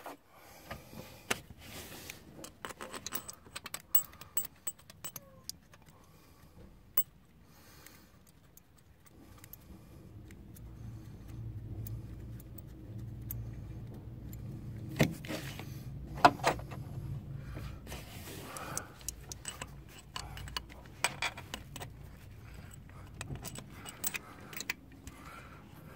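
Metal clinking and tapping of a wrench and bolts while the mounting bolts of a car's air-conditioning compressor are fitted by hand, with a louder knock about 15 and 16 seconds in. A low rumble swells up in the middle and fades again.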